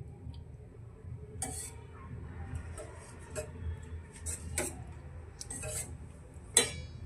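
Kitchen utensil working in a cooking pan: scattered light scrapes and clicks, then a sharp ringing clink against the pan near the end.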